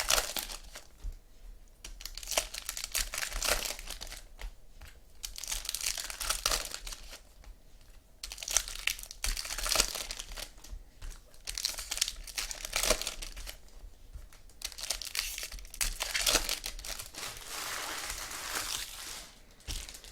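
Foil trading-card pack wrappers being torn open and crumpled by hand, in several crinkling bursts with short pauses between them.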